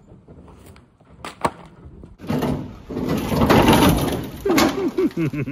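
Two light knocks, then a loud stretch of scraping and creaking from the rusty body of a 1973 Plymouth Scamp as its trunk lid is worked by hand.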